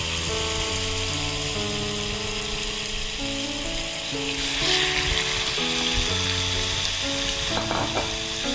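Marinated chicken pieces sizzling and frying in a lightly oiled frying pan, the sizzle swelling briefly about halfway through. A background music melody plays throughout.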